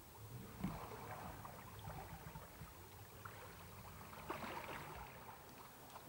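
Small boat on a canal: a faint low steady rumble with scattered light knocks and clicks, a few of them close together about four seconds in.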